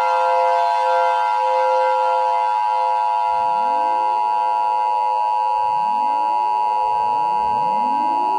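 Emergency Alert System two-tone attention signal: a steady, harsh two-pitch tone. From about three seconds in, four rising swooping tones are layered over it.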